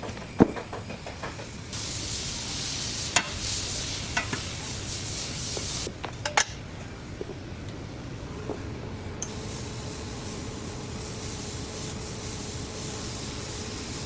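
TIG welding arc on stainless pipe, hissing steadily. It starts about two seconds in, cuts off abruptly around six seconds and strikes again a few seconds later. A few sharp clicks are heard.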